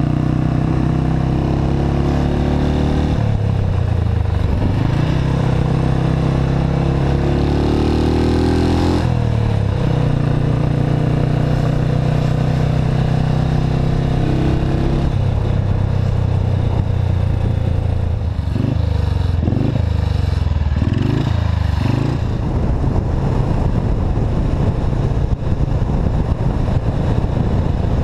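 Historic motorcycle engine running under way as heard from the bike itself, climbing in pitch as it accelerates and dropping at gear changes a few seconds apart, with some short rises and falls in pitch later on.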